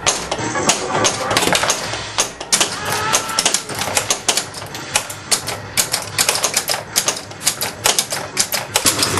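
Bally The Shadow pinball machine's playfield mechanisms clacking: rapid, irregular sharp clicks and knocks of solenoids and drop targets, several a second, with game music faint underneath.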